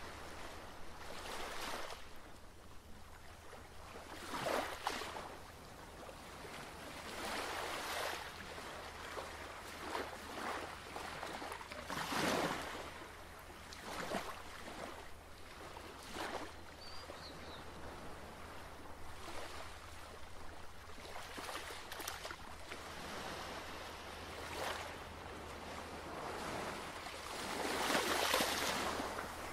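Ocean surf washing in, a rushing hiss that swells and fades every few seconds, the biggest surges near the start, in the middle and near the end, over a steady low hum.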